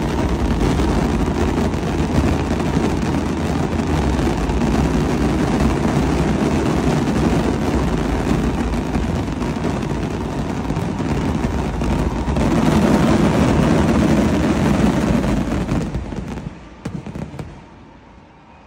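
Fireworks display at full barrage: many shells bursting so close together that they merge into one continuous rumble. It grows louder about two-thirds of the way through, then dies away near the end.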